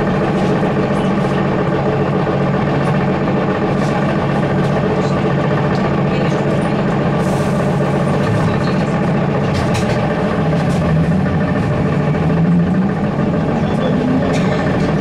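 Inside a ZiU-682G trolleybus: a steady hum made of several even tones from its electrical equipment, with light rattles and clicks. From about ten seconds in, a whine rises in pitch as the trolleybus speeds up.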